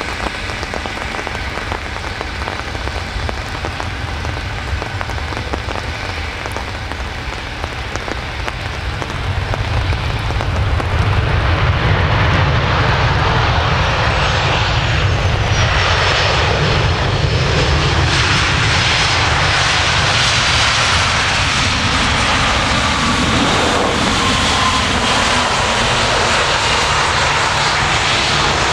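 Boeing 737-800 airliner's CFM56-7B jet engines as it comes in to land and rolls past. The sound grows louder about ten seconds in, and a whine falls steadily in pitch as the plane goes by.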